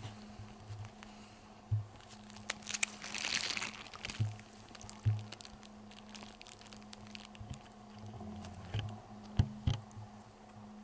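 Irregular footsteps crunching on a dirt forest trail strewn with dry twigs and pine needles, with rustling of clothing and gear, under a faint steady low hum.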